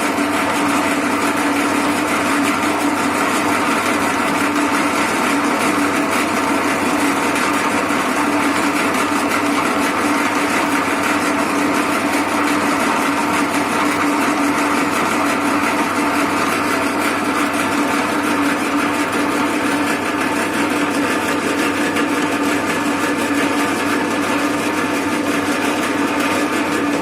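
Herless bench pillar drill running steadily as a makeshift milling machine, its motor and drive giving an even hum with a strong steady tone and no change in speed.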